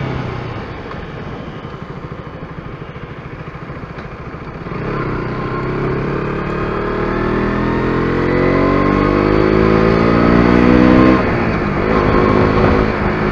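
KTM RC 125's single-cylinder four-stroke engine under way: for the first few seconds it runs low with a pulsing beat, then about five seconds in it pulls hard, its note rising steadily for about six seconds. Near the end the revs drop sharply at a gear change and the engine pulls on at a steadier pitch.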